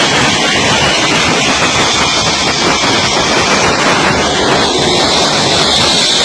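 Fighter jet engines running close by on an aircraft carrier deck: a loud, steady rush of jet noise with a high whine that strengthens near the end, mixed with wind buffeting the microphone.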